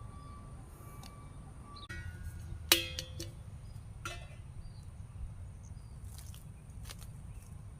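A sharp metallic clink that rings briefly with a few clear tones, about three seconds in, and a fainter one about a second later, over a steady low rumble.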